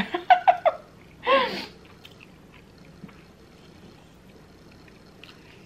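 A woman's voice making excited wordless sounds of delight: four quick high-pitched yelps in a row, then a longer squeal that bends in pitch about a second in.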